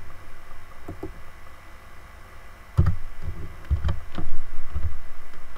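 Irregular dull knocks and clicks from a computer mouse and keyboard being used, a few scattered at first and then a busier run past the middle.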